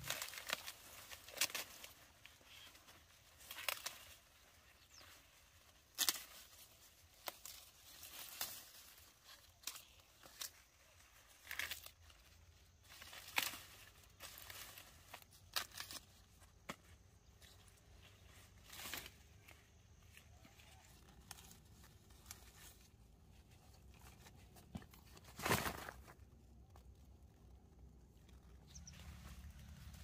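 Corn being harvested by hand: ears snapped and torn off the stalks, with dry leaves and husks rustling. Short, irregular snaps and crackles come every second or so, with one louder snap late on.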